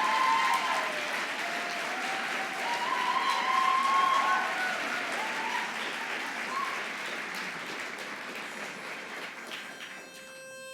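Audience applauding and cheering with whoops, the applause dying down. Near the end a single steady reed note sounds, a pitch pipe giving the starting note for the next barbershop song.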